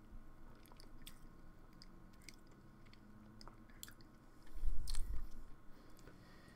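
Small wet mouth clicks and lip smacks of a person tasting a mouthful of soda, with a louder muffled thump about four and a half seconds in.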